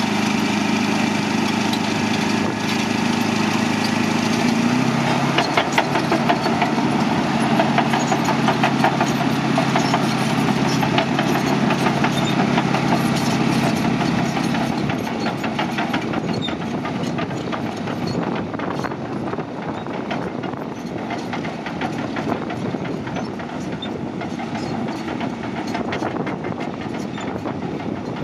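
Caterpillar D9N bulldozer: its V8 diesel engine running, the pitch stepping down about five seconds in, then the steel tracks clanking and rattling. The engine note fades and the whole sound grows quieter in the second half.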